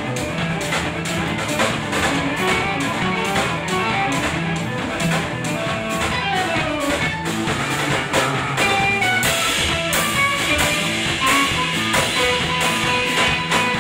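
Live jazz-rock trio playing: electric guitar, electric bass and drum kit, with a steady beat of drum and cymbal strokes under the guitar lines. The cymbals get brighter and louder about nine seconds in.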